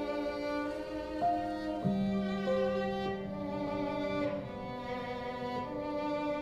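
Background music: bowed strings holding long, steady notes that change every second or so.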